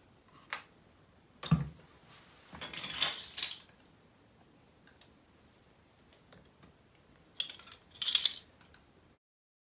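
Plastic clicks and clatter from handling a detergent bottle and a ring of plastic measuring spoons, with a dull thump about a second and a half in and two short bursts of rattling, around three seconds and again near eight seconds.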